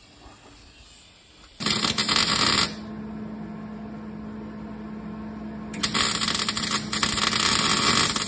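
Electric arc welder crackling and sizzling as it welds a 3/8-inch steel brace onto the cracked frame of a snowcat: a short run of about a second, a steady hum and hiss, then a longer run of several seconds broken by brief stops.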